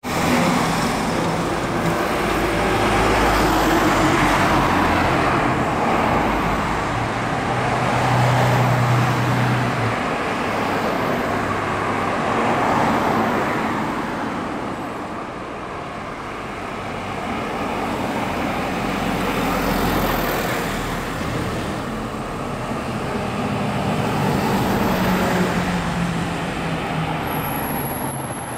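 Road traffic: several vehicles pass one after another on the street, the noise swelling and fading, with a low engine hum as one goes by.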